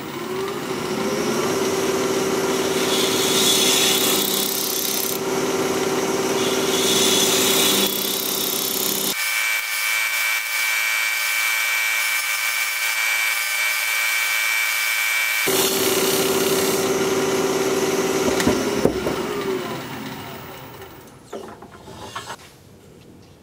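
A wood lathe spins up with a rising hum, and a bowl gouge cuts into a spinning, unopened pine cone, hollowing its inside. The lathe winds down and goes quiet a few seconds before the end.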